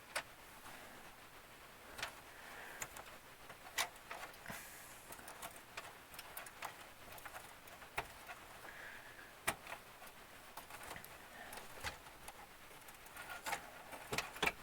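Scattered light clicks and taps, a few seconds apart, with a small cluster near the end, as fasteners are worked loose and metal parts of a rack server's chassis are handled.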